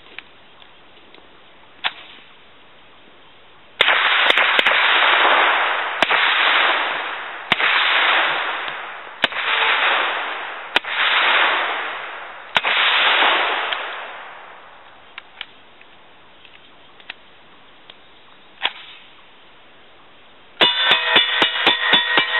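Suppressed semi-auto Uzi short-barreled rifle firing. About six single shots come 1.5 to 2 seconds apart, each with a long fading echo. Near the end comes a fast string of shots, several a second, with a ringing tone.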